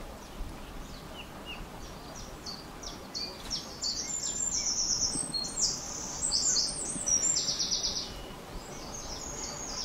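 Songbirds singing in the trees: scattered short, high chirps at first, then quick, high trills that repeat through the middle and are the loudest part, over a steady low outdoor background.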